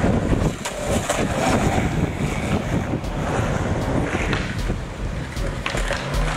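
Skateboard wheels rolling over concrete, a steady rumble with a few light clicks and knocks, and wind buffeting the microphone.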